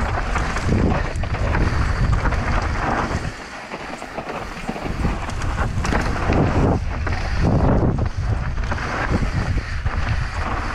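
Wind buffeting the microphone of a camera on a mountain bike descending a loose, dusty dirt trail at speed, mixed with tyres rolling and skidding over the dirt. The rush rises and falls unevenly, easing briefly about four seconds in.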